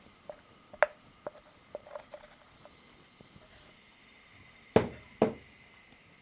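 Hands kneading and rolling sticky rice flour (mochi) dough in a bowl: a few light taps and clicks, then two louder knocks in quick succession about five seconds in.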